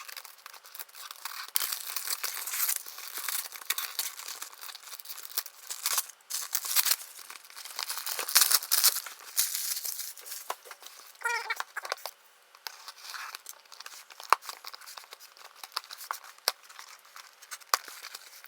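A mail-order package being torn open by hand, with irregular bursts of tearing and crinkling from its tape and wrapping. About eleven seconds in there is a brief squeak.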